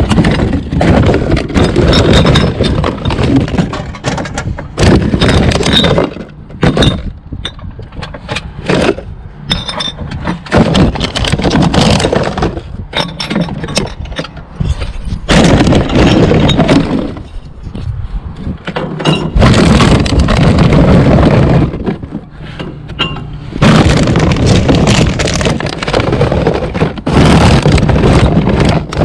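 Glass bottles and metal cans clattering and clinking as they are handled and sorted, in long loud stretches of rattling with quieter gaps between.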